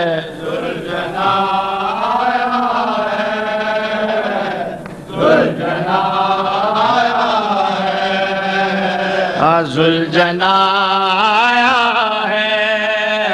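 Male voices chanting a noha, a Shia lament of mourning, in long, drawn-out melodic phrases.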